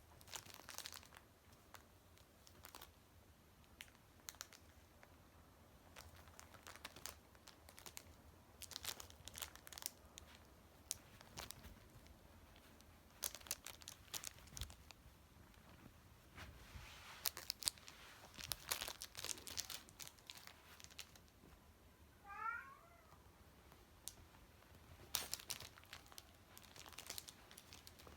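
Scottish fold kitten stepping on and pawing at chocolates, giving faint scattered crinkles and rustles of their wrappers. A single short, high kitten mew a little over two-thirds of the way through.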